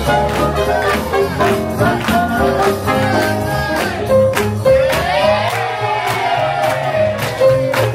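Swing jazz music played by a DJ, with a singer over a steady beat.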